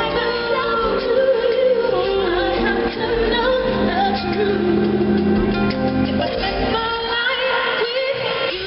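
Live acoustic pop ballad: a woman sings a wavering, ornamented melody into a microphone over acoustic-electric guitar accompaniment, with the echo of a large hall.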